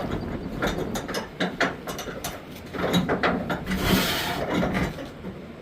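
A 4-inch cargo strap being tightened, its ratchet pawl clicking in irregular runs, with a longer scraping sound about three and a half seconds in.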